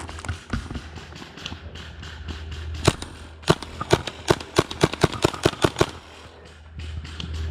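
Tippmann M4 HPA airsoft rifle firing semi-auto: one shot about three seconds in, then a fast string of about a dozen shots over roughly two seconds.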